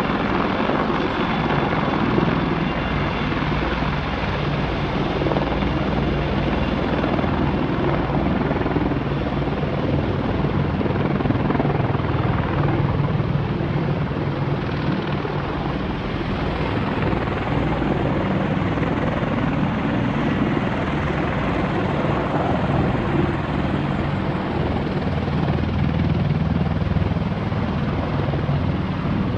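Army AH-64 Apache helicopters' rotors and twin turboshaft engines running steadily as they arrive and set down to refuel, a continuous low, heavy rotor noise with engine hiss above it.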